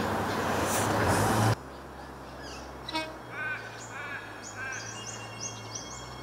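Alstom-built Adelaide Metro 4000 class electric train running in with loud rail and running noise, which cuts off abruptly about a second and a half in. What follows is a quieter background with a low steady hum, and birds chirping: a few repeated arched notes, then a run of quick high calls.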